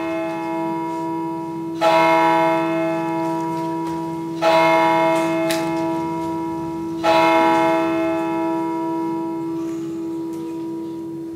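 A large bell tolling: three strokes about two and a half seconds apart, each ringing on and slowly dying away.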